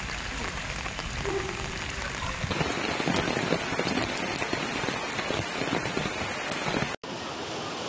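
Torrential rain falling and splashing on flooded ground, a dense crackling patter. The sound changes abruptly about two and a half seconds in, growing denser, and changes again with a brief dropout near the end.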